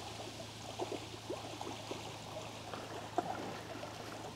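Quiet trickling, gurgling water with many small bubbling blips scattered through it, over a steady low hum.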